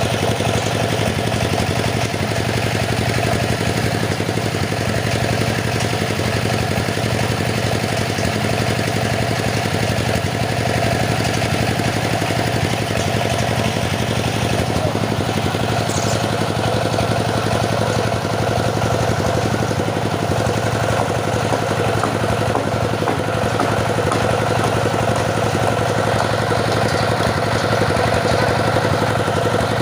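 Engine of a wood-cutting saw running steadily at a constant speed.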